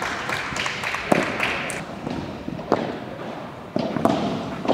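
Padel balls being struck by paddles and bouncing: a handful of sharp, irregularly spaced pops that echo in a large indoor hall.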